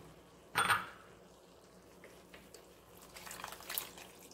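Thin tomato sauce rinsed with water poured from a glass blender jar into a stainless steel skillet of ground beef and vegetables, splashing for most of a second near the end. A brief clatter of kitchenware sounds about half a second in.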